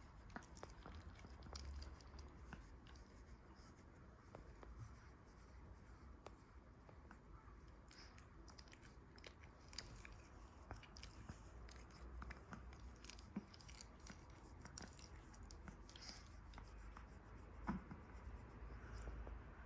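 Smooth-coat Chihuahua chewing quietly: faint, scattered small crunches and mouth clicks, with one sharper click near the end.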